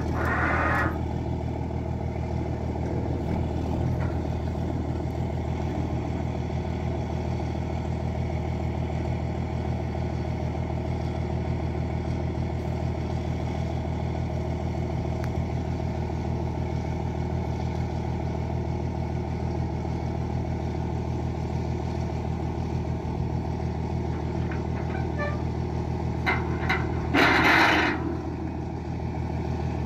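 A boom truck's engine running at a steady speed while its boom hoists and lowers a steel water tank. Near the end comes a loud burst of noise lasting about a second.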